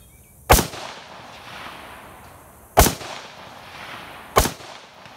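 Three aimed shots from a scoped AR-style rifle, spaced about two and a half and then one and a half seconds apart, each sharp report trailing off in a short echo.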